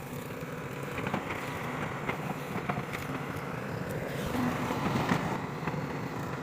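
Excavator diesel engine running steadily, with scattered sharp metallic clanks and knocks.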